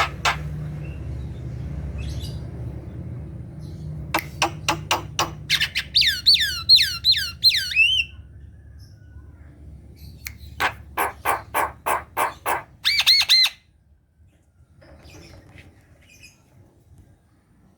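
Javan myna singing: bursts of quick, harsh chattering notes and a run of about six whistles that sweep steeply downward, with a quieter stretch near the end.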